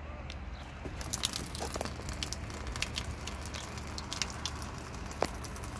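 Water streaming out of a slit cut in a taped water balloon and splashing where it lands: a dense, irregular patter of small ticks that starts about a second in, with one sharper click near the end.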